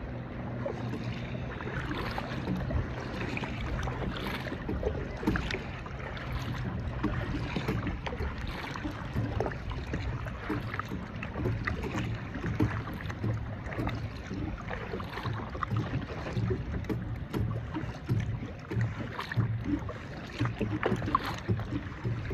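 Kayak on the water: irregular small splashes and knocks over a steady low rumble.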